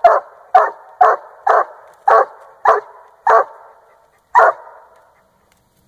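Treeing Walker Coonhound barking treed: eight sharp barks at about two a second, the last one after a short pause, then quiet near the end. This is treeing barking at the foot of a tree, the sign of a raccoon up the tree.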